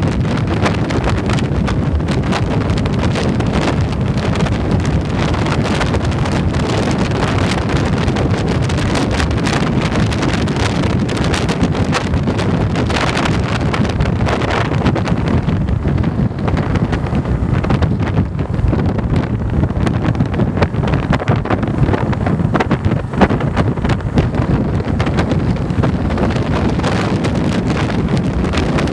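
Heavy wind buffeting on the microphone of a motorcycle being ridden at road speed, with the motorcycle's engine and road noise running underneath.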